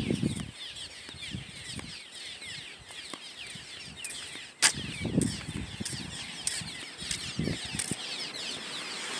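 Many small birds chirping continuously, a dense stream of short, quick, falling chirps, over a steady rush of the fast-flowing, flood-swollen river. A few low rumbles swell up, and there is one sharp click about four and a half seconds in.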